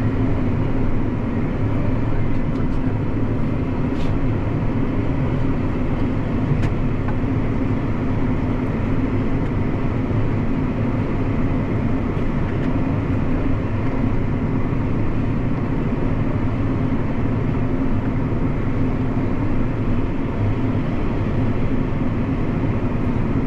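8310 tractor's engine running steadily under load, heard from inside the cab: a continuous, even low drone.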